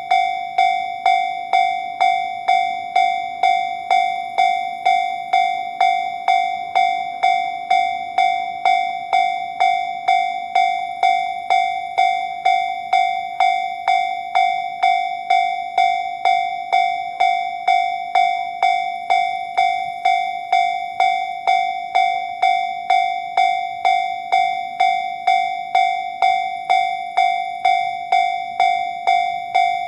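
Japanese railway level-crossing alarm giving the JR standard electronic bell tone: a clear 'kan-kan' ding with a short ringing tail, repeated evenly at just under two strikes a second. It is the warning that a train is approaching the crossing.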